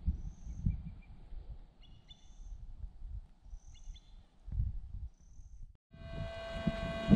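Birds calling, with short high chirps about every second and a half and a few quick multi-note calls, over an irregular low rumble. About six seconds in the sound drops out briefly and a steady whine with several tones starts abruptly.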